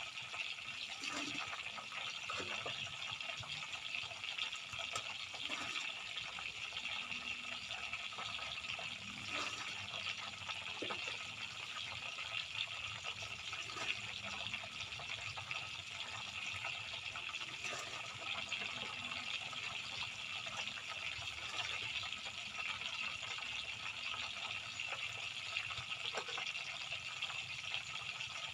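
Tofu frying in hot oil: a steady sizzle with scattered small pops and crackles.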